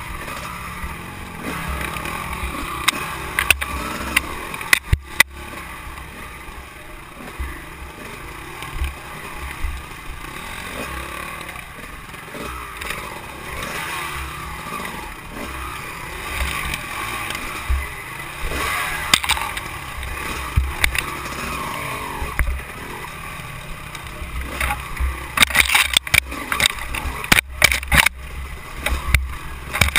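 Dirt bike engine running hard under load, its note rising and falling with the throttle over rough ground. Sharp knocks and clicks from the bike jolting over bumps, several close together near the end.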